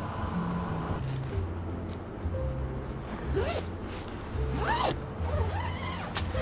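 A zipper pulled in a few quick strokes a little past halfway, each stroke rising and falling in pitch, over background music with a steady bass line.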